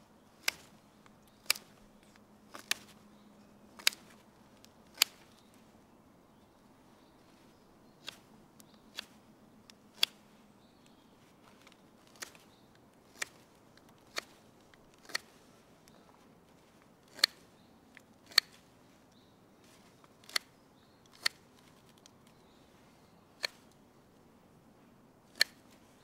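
Victorinox Huntsman pocket knife blade cutting shavings from a wooden spoon, a sharp click with each stroke, about one a second with a few short pauses.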